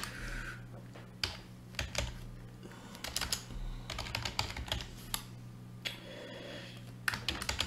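Typing on a computer keyboard in short, irregular runs of keystrokes, over a steady low hum.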